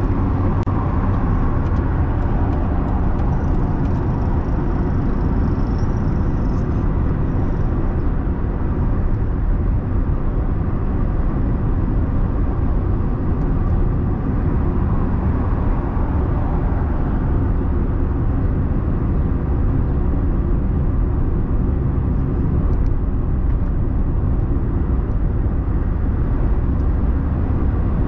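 Steady engine and tyre rumble of a car driving along, heard from inside the cabin.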